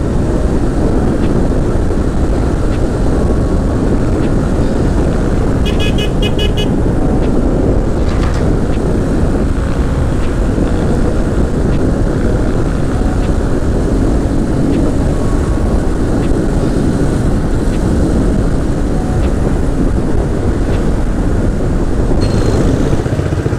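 Motorcycle cruising at steady speed, its engine and the rush of riding loud and unbroken. About six seconds in comes a short run of rapid high beeps.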